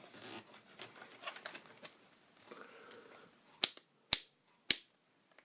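Three sharp plastic clicks about half a second apart, typical of a multimeter's rotary range selector being turned through its detents.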